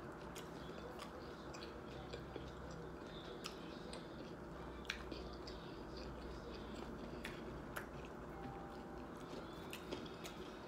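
Faint close-up chewing of a taco, with scattered small mouth clicks.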